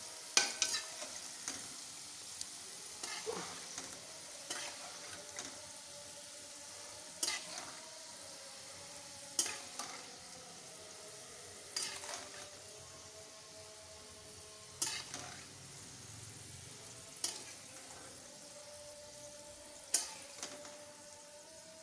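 Hot cooking oil sizzling under french fries draining in a wire mesh skimmer over the pan, with sharp clicks every two to three seconds.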